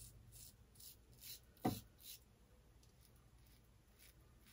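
Rockwell 6C double-edge safety razor with an Astra blade scraping through lathered beard stubble: faint short strokes, about three a second, over the first two seconds, with one brief low thump about one and a half seconds in, then little but room tone.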